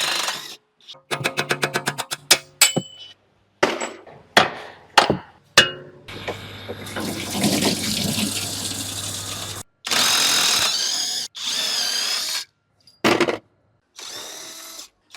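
A string of short workshop clips cut together: power tools running in bursts, a quick rattle of evenly spaced clicks, and sharp metal knocks of hand tools, each segment ending in an abrupt cut.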